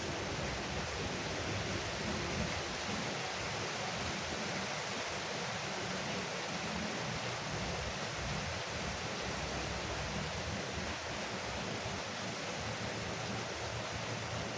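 Rain falling steadily on a porch roof, an even, unbroken hiss with no single drops or thunder standing out.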